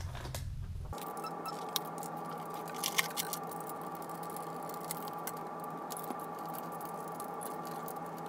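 Screwdriver working screws out of the sheet-metal base of a stamp vending machine: small scattered clicks and scrapes, sharpest about two and three seconds in, over a steady faint hum.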